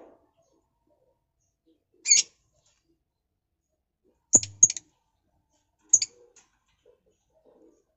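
Caged lovebirds giving short, sharp, high-pitched chirps: one about two seconds in, a quick pair a little after four seconds, and one more at six seconds.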